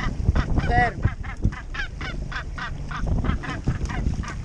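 Young northern gannet calling in a rapid series of short honks, about five a second, while it is held hooked by the foot on a fishing lure.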